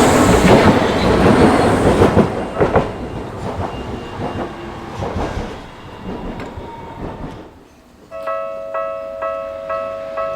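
A Tokyu Setagaya Line train running past over the level crossing, loud at first with a few wheel clacks, then fading away. About eight seconds in, the crossing's electronic alarm starts ringing, a two-tone ding repeating about twice a second, warning of an approaching train.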